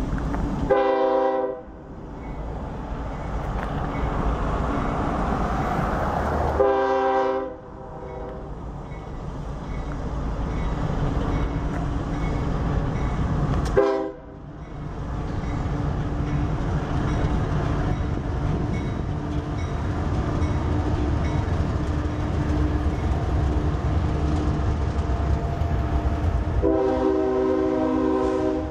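Union Pacific diesel freight locomotive sounding its multi-note air horn in the long, long, short, long pattern of the standard grade-crossing signal. Between the blasts the locomotives' diesel engines and the rolling train give a steady low rumble that grows as the train approaches.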